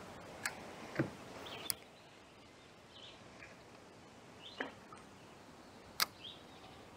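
Quiet outdoor ambience broken by a few sharp clicks and knocks, about a second in and again near six seconds, with a few faint bird chirps.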